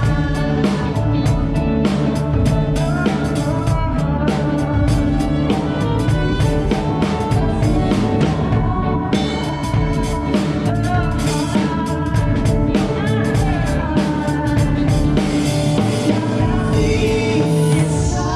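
Live band playing a song: a singer over a drum kit and other instruments, with a steady run of drum hits.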